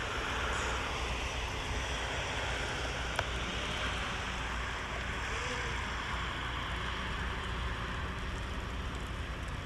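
Steady wind rushing and rumbling across the microphone in blizzard conditions.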